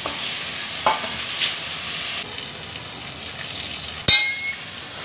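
Koi fish and spices sizzling steadily in hot oil in a steel wok as liquid is poured in from a steel bowl, with a sharp metal clink about four seconds in.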